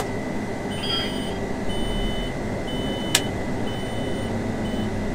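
Combine cab warning alarm beeping, a string of short high beeps: the monitor warns that the grain tank covers are not open. Under it the running engine and cab blower hum steadily, with a sharp click at the start and another about three seconds in.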